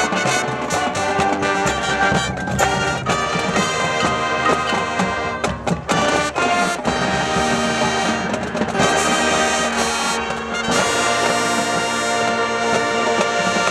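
High school marching band playing, the brass section carrying the music over drumline hits, moving into long sustained chords in the last few seconds.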